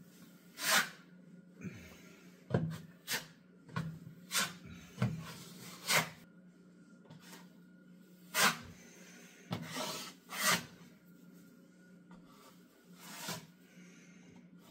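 Metal taping knife scraping joint compound across drywall in short, irregular strokes, about a dozen in all, filling small pellet holes.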